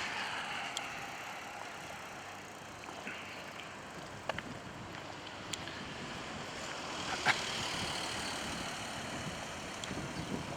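Steady outdoor background noise, a hiss with a low rumble, broken by a few short sharp clicks and knocks; the loudest knock comes about seven seconds in.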